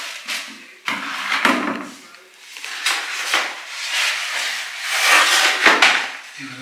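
Green plastic bag liner rustling and crinkling as it is pushed down and smoothed into a bucket. Near the end, paper packaging crinkles as an absorbent pad is pulled out.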